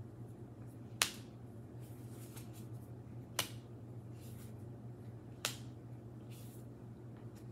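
Tarot cards being drawn from a deck and laid on a cloth table mat: three sharp card snaps about two seconds apart, with soft sliding and brushing of cards between them. A steady low hum runs underneath.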